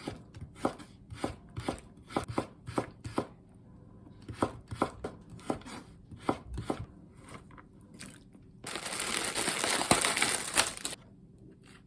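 Kitchen knife chopping on a cutting board in steady strokes, about two or three a second. After a short pause near the end, a louder rushing hiss runs for about two seconds and cuts off suddenly.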